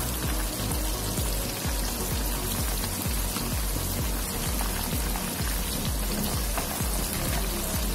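Hot oil bubbling and crackling steadily around oat-coated tilapia fillets deep-frying in a pan.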